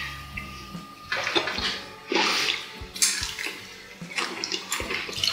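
Close-miked eating sounds: wet chewing and mouth noises in short noisy bursts as a man eats potatoes, with a few light clicks of a fork on a plate.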